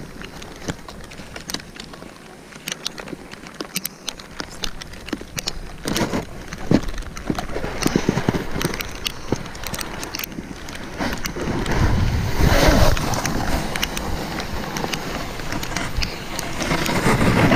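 Snowboard sliding and scraping over packed snow, with wind buffeting the action camera's microphone. It turns louder and rougher about six seconds in, with the heaviest wind rumble around twelve seconds.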